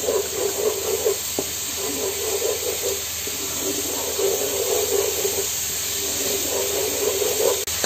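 Ground raw onion paste and ginger frying in hot oil in a non-stick pot, a steady sizzle and hiss, with a wooden spoon stirring through it.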